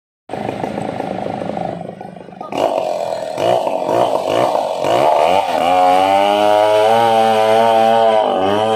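Gasoline chainsaw cutting into a giant Angsana tree stump. The engine note is uneven at first and drops about two seconds in, then picks up and runs high and steady under load, its pitch dipping briefly near the end.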